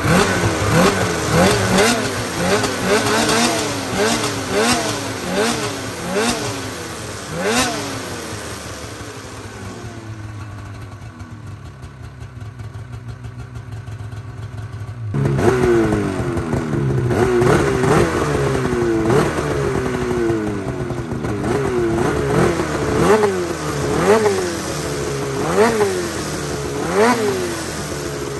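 Polaris Matryx 850 snowmobile's two-stroke twin being blipped on the throttle through an aftermarket silencer, a sharp rev roughly once a second, then settling to a steady idle. About halfway through it cuts abruptly to the same engine being blipped again with a different silencer fitted, and the exhaust note changes.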